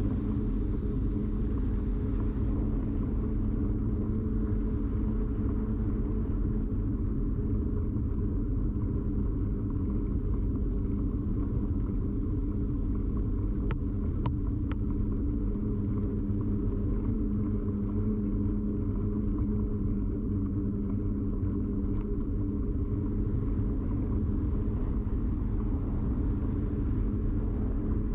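Steady rumble and hum of a bicycle ride, picked up through a camera rigidly mounted on the bike, with three quick clicks a little before halfway.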